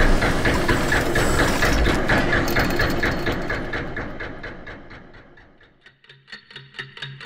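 Sound-effect clockwork: a dense whirr and clatter of turning gears with ratchet-like clicking, fading away over about five seconds. Then a clock's ticking starts near the end, about three ticks a second.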